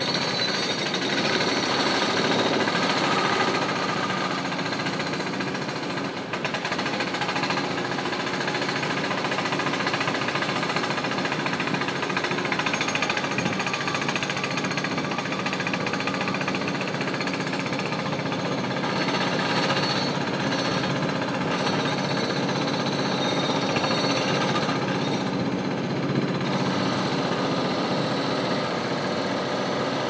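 Jackhammer running steadily: a continuous rapid hammering of construction or renovation work.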